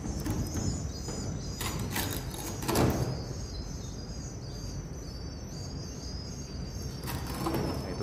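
Swiftlets chirping, a steady run of short, high, repeated calls. A few knocks from a pole-mounted harvesting net against the wooden nest beams come about two and three seconds in.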